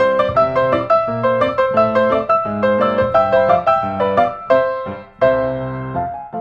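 Background piano music, a quick run of notes several to the second, with a short pause near the end.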